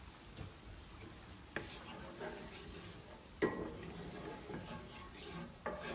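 Wooden spoon stirring and scraping thick tomato sauce in a pan, with three sharp knocks of the spoon against the pan, the second loudest.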